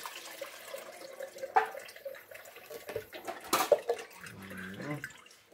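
Coconut milk running and dripping through a plastic strainer into a steel bowl, with a couple of sharp knocks about 1.5 s and 3.5 s in.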